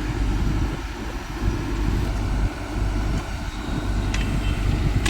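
Caterpillar excavator's diesel engine running steadily with a low hum, with a couple of sharp clicks near the end.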